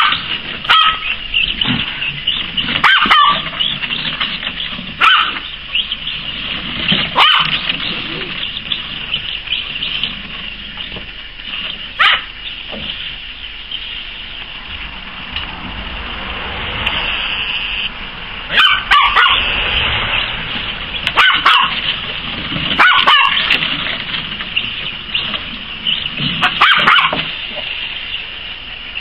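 Poodle puppy barking in short bursts every few seconds, over a steady high-pitched buzz.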